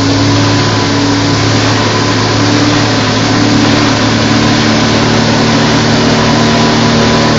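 Yamaha 115 hp outboard motor running steadily at planing speed, its engine note over a rush of wind and water.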